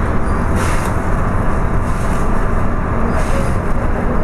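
Steady running rumble inside a moving electric suburban train carriage, with two short hisses, one about half a second in and another just after three seconds.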